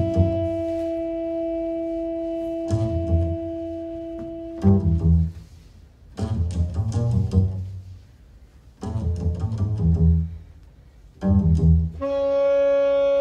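Live double bass and saxophone duo: the saxophone holds one long note for the first five seconds or so, then the double bass plays short low phrases separated by brief pauses, and the saxophone comes back in with a new held note near the end.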